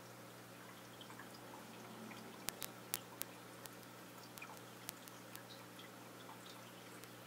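Steady low hum of running aquarium equipment over a faint water hiss, with a few short sharp clicks and drips scattered through, a cluster of the loudest ones about two and a half to three seconds in.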